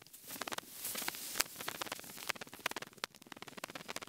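Footsteps crunching and scuffing over gravel, stones and dry leaf litter, heard as a run of quick, irregular clicks and crackles.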